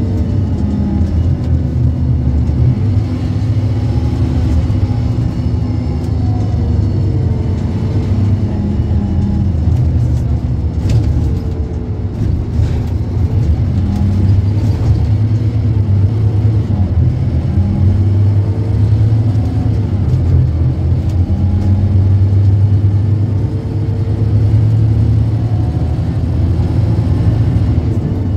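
Scania K230UB city bus's five-cylinder diesel engine running under way, a steady low rumble whose pitch rises and falls again and again as the bus accelerates and changes gear. A couple of brief knocks or rattles come near the middle.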